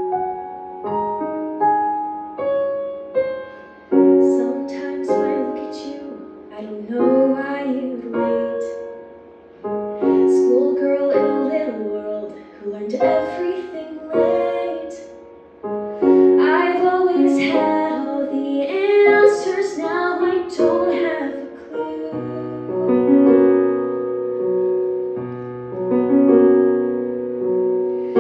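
A piano playing alone, then a young female voice singing a ballad over the piano from about four seconds in; for the last several seconds the piano plays on alone.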